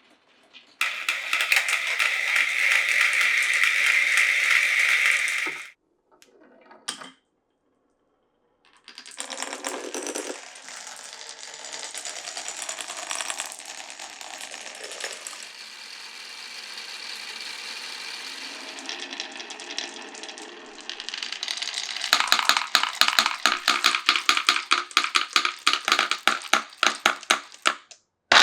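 Glass marbles rolling through a wooden marble run. A steady rolling rush lasts about five seconds, then comes a short pause and a longer, quieter roll. The last six seconds are a fast clatter of rapid clicks.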